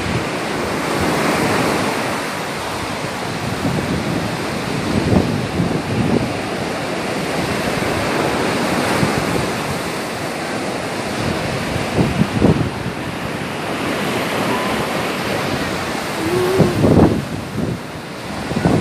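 Sea surf breaking and washing up a sandy beach in a steady rush, with wind buffeting the microphone in irregular gusts.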